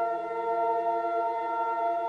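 Background music: a slow ambient drone of several tones held steady together.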